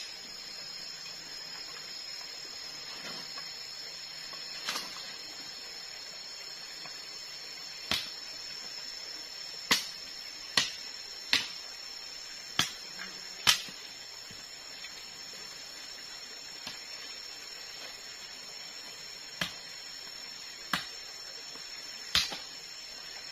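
Sharp, irregular knocks of a blade chopping at a bamboo pole, about a dozen in all and bunched together in the middle, over the steady high-pitched buzz of forest insects.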